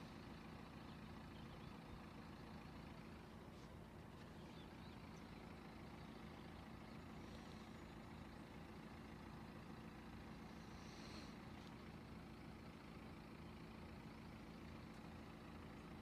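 Near silence: a faint, steady low hum with no passing train or other distinct event.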